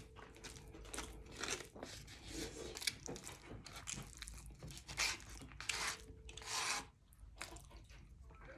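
Fairly faint close-up eating sounds: a person chewing, with a string of short, irregular rasping and rubbing noises.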